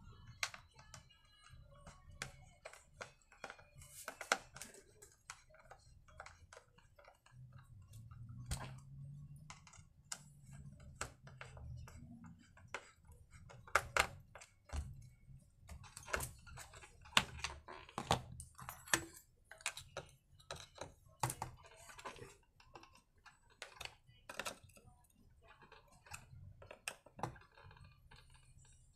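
Scattered faint clicks and taps of a screwdriver and hands on plastic as the recoil starter cover of an Oleo-Mac 937 chainsaw is fitted and screwed back on.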